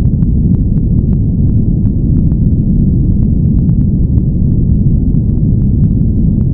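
Steady, loud noise track used to mask a subliminal recording, dark and rumbly rather than hissy, with its energy held low. Faint scattered ticks sit on top of it.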